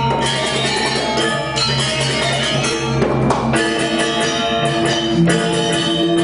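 Balinese gamelan ensemble playing live: bronze metallophones ringing in fast interlocking strokes over sustained gong tones and drums, with a brief noisy crash about three seconds in.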